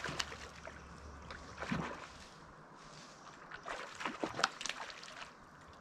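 Faint water sloshing with scattered small splashes and rustles close by, in clusters about two seconds in and again around four seconds.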